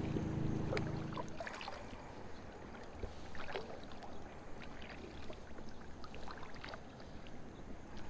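Kayak paddle strokes in calm water, with small splashes and drips off the blades scattered through. A low steady hum fades out about a second in.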